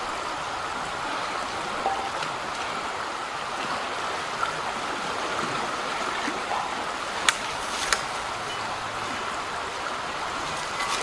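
Shallow creek running over rocks, a steady rushing of water. Two short sharp clicks sound about seven and eight seconds in.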